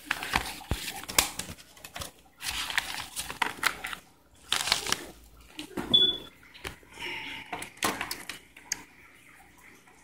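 Plastic blister packaging and a padded paper mailer crinkling and rustling as they are handled, in several separate bursts with sharp clicks, and a short squeak about six seconds in.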